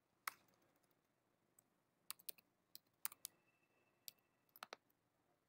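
Keys on a computer keyboard being typed: about a dozen faint, separate clicks at an uneven pace, some coming in quick little runs.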